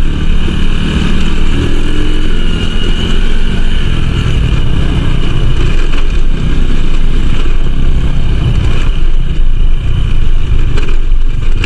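Small motorcycle ridden off-road, its engine running steadily under a heavy, choppy wind rumble on the microphone.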